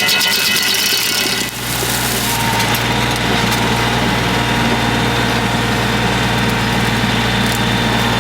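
Compact diesel tractor engine running steadily, driving a PTO stump grinder. There is a brief dip in level about a second and a half in, after which a steadier low hum takes over.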